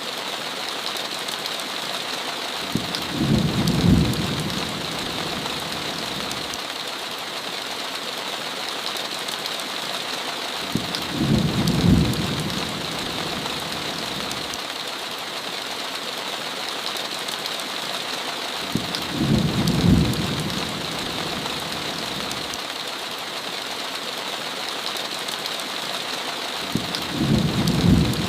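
Steady heavy rain, with four low rumbles of thunder at even spacing about every eight seconds. Each rumble swells over about a second, then stops.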